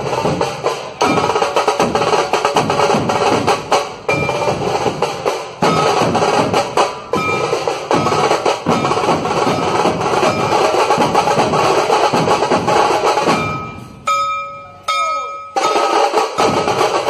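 Dhol tasha ensemble: many large dhol barrel drums and tasha drums beaten with sticks in a loud, fast rhythm together. The drumming drops out briefly near the end, where a held tone sounds twice, then starts again.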